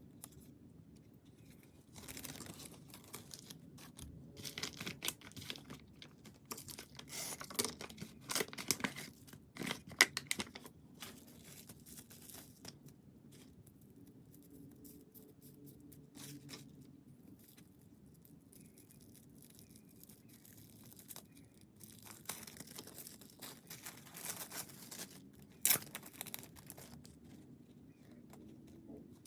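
Parcel packaging torn and crinkled by hand, in several bursts with quiet spells between. There are two sharp snaps, one about ten seconds in and one near the end.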